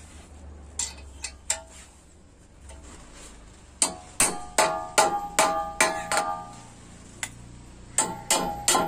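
Hammer blows on a TVS 50 moped's steel frame at the steering head tube, driving in a bearing cup, each strike ringing metallically. A few light taps come first, then a run of about three strikes a second from about four seconds in, a short pause, and more strikes near the end.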